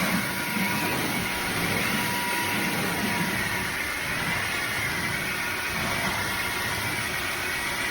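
Cordless wet-dry vacuum mop running steadily, its motor whine wavering slightly in pitch.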